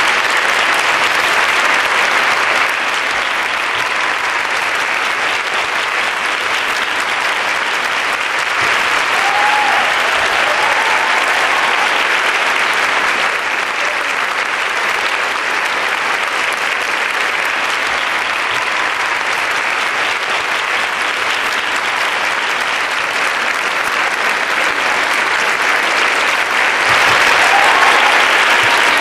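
Sustained applause from a large audience filling a big hall, steady throughout and swelling a little louder near the end.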